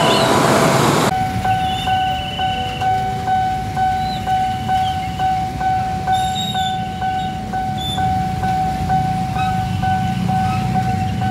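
Electric commuter train running on the rails, its wheels squealing, for about the first second; then a level-crossing warning bell ringing steadily, about two to three strokes a second, over the low rumble of idling motorcycles and rain.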